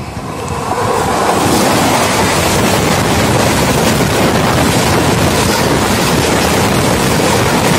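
Rushing, clattering roar of an express train's passenger coaches passing at speed close alongside on the adjacent track, heard from the open doorway of a moving local train with wind buffeting the microphone. It swells over the first second and then holds loud and steady.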